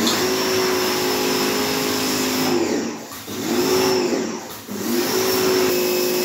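Small electric pressure washer running, a steady motor hum with the hiss of the water jet. Twice, about three seconds in and again near five seconds, the motor note sags and then picks back up.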